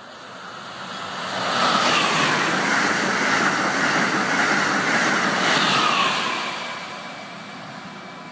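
Amtrak Acela Express high-speed electric train passing straight through a station at speed. Its rushing wheel and air noise swells over the first two seconds, holds loud for about four seconds as the train goes by, then fades as it pulls away.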